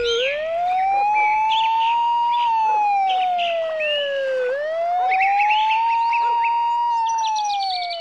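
A siren wailing, its pitch rising and falling slowly, about twice, over birds chirping.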